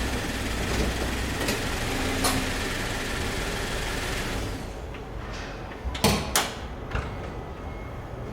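Car engine idling steadily, then switched off about halfway through, followed by a few sharp clunks and clicks like a car door or latch.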